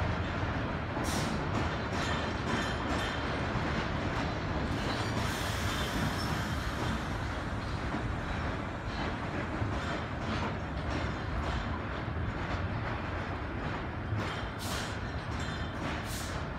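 1930s R1-9 subway cars rolling along the track below, a steady rumble of wheels on rail. A few brief high-pitched wheel noises cut through, about a second in and twice near the end.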